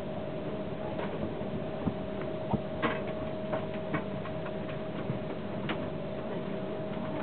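Steady hum inside a stationary passenger train carriage, with a held tone over it, and irregular light clicks scattered through it.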